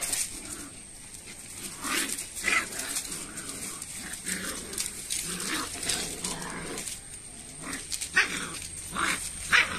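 Two Rottweiler puppies play-fighting, giving short yips and low growls, with the crackle of a dry coconut palm frond they are tugging and trampling.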